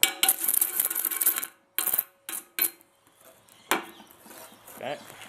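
Oxy-acetylene torch flame hissing loudly, cutting off suddenly after about a second and a half, then a few short bursts of hiss. A single sharp knock follows a little before the end.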